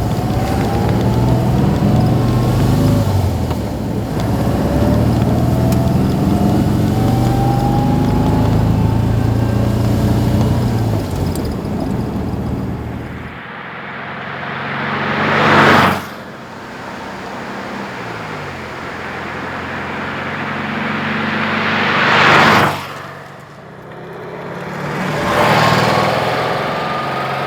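Air-cooled flat-four engine of a 1954 Porsche 356 pre-A running and pulling, its pitch rising. Later, three times, the sound swells into a loud rush and cuts off suddenly.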